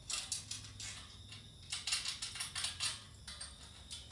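Light metal clicks and clinks of a wrench turning and tightening a bolt on a tubular steel clothes-hanger rack, in several short runs of quick clicks.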